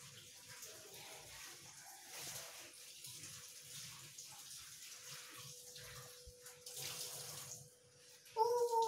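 Faint steady hiss like water running from a tap, under a thin steady hum. Near the end a loud, high-pitched wavering call begins.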